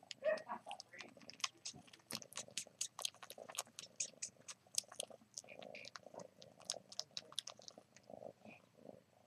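A kitten suckling on its own belly fur: a quick run of wet sucking clicks, about four or five a second.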